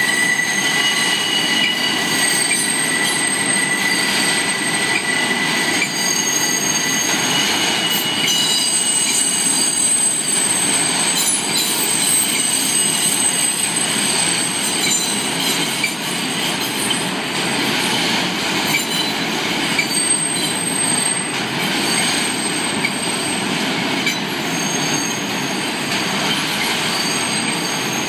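New York City subway train rolling slowly past, a continuous rumble of steel wheels on rail. High, steady wheel squeal rides over it, strongest in the first several seconds.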